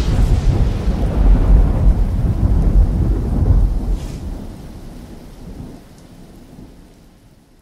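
Thunder rumbling heavily over steady rain, the rumble dying away over the last few seconds.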